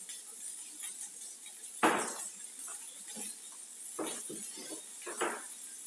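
A spoon clinking and knocking against dishes while sauce is spread on burger buns: one loud sharp clink about two seconds in, then a few lighter taps near the end.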